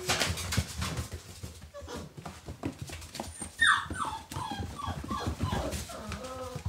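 Puppies play-fighting: scuffling and rustling, then, about halfway through, a quick run of high yelps and whines that each slide down in pitch, with a few more near the end.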